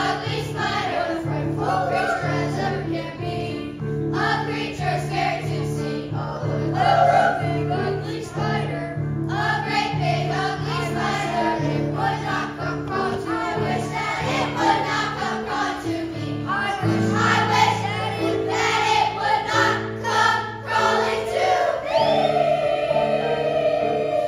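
Children's choir singing together over a steady instrumental accompaniment, holding one long note near the end.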